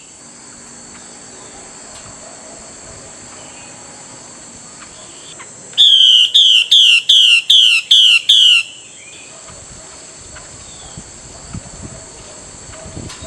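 Female Chinese hwamei (melodious laughingthrush) giving its call to a male: a quick series of about eight loud, descending notes, about three a second, starting around six seconds in and lasting under three seconds. A steady high-pitched background hum runs underneath.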